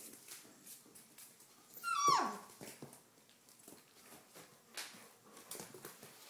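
A four-week-old Doberman pinscher puppy gives one loud whimper about two seconds in, falling steeply in pitch, over light clicking.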